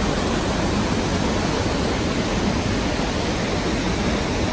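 Tamanawas Falls, a tall waterfall plunging onto rocks, heard close to its base: a steady, even rush of falling water and spray.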